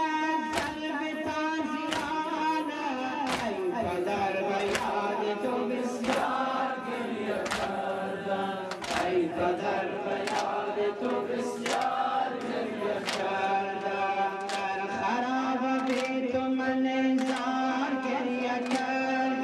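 A group of voices chanting a Muharram mourning lament in long, held phrases. A steady beat of sharp strikes comes about every 0.7 seconds throughout.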